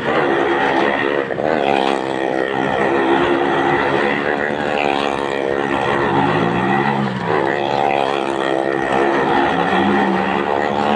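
Car and motorcycle engines running hard as the vehicles circle the wooden wall of a well-of-death pit. The engine note rises and falls again and again as they go round.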